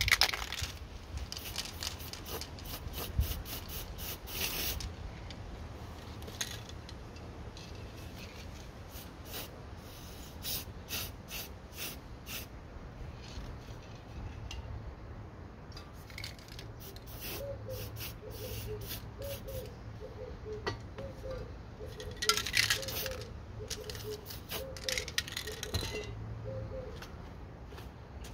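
Aerosol spray-paint cans being handled and used: clicks, rattles and clinks of the cans and caps, with short hisses of spray, the two longest near the end.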